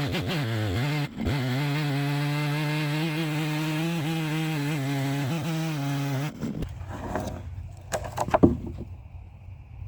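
Stihl MS 660 two-stroke chainsaw running at steady high speed under load, ripping lengthwise through an ash log in an Alaskan chainsaw mill, with a brief dip about a second in. The engine cuts off suddenly a little past halfway, followed by a few sharp knocks and clatters.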